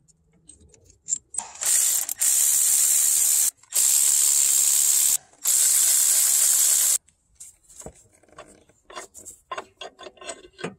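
Cordless electric ratchet running in three bursts of about two seconds each, spinning transmission mount bolts out. Then a few seconds of light metal clinks from tools and parts being handled.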